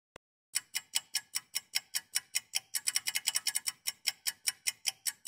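Clock-like ticking sound effect: sharp, even ticks about five a second, beginning about half a second in after one lone click.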